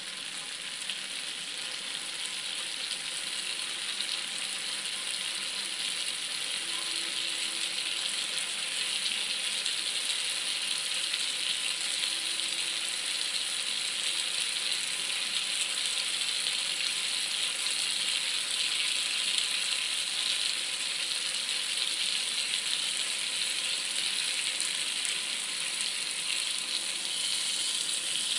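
Potato and eggplant pieces frying in spiced oil in a pot: a steady sizzle with fine crackling that grows slowly louder.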